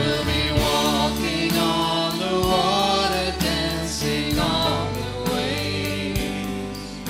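Vocal group singing a contemporary Christian song over band accompaniment, with a steady beat and bass.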